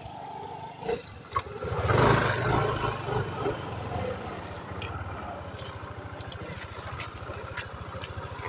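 Small motorcycle engine running steadily while the bike is ridden, with rapid even firing pulses; it swells louder for a moment about two seconds in.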